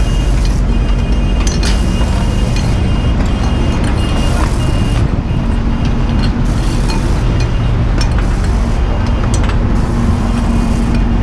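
Fire truck's aerial ladder being moved toward a window: a steady engine and hydraulic drive rumble with a hum that comes and goes, and scattered clicks and clanks from the ladder sections.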